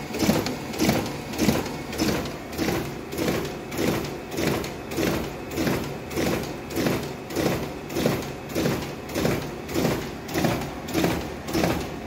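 Riso CV 3230 digital duplicator running a print job, feeding and printing sheets in a steady rhythm of about one and a half to two sheets a second, each sheet marked by a regular mechanical beat.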